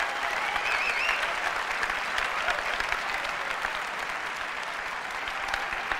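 Large audience applauding, with a brief cheer about a second in; the clapping eases off slightly toward the end.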